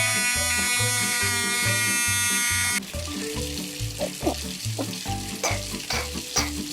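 Electric toothbrush buzzing with a steady hum and hiss for nearly three seconds, then cutting off suddenly, leaving softer brushing noise over background music with a steady beat.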